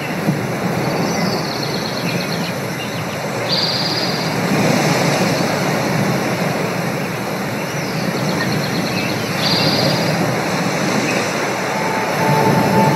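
Ocean-voyage ambient soundscape: a steady rush of surf and wind. Twice, about six seconds apart, a high bird-like call glides down and then holds briefly. A held musical note comes in near the end.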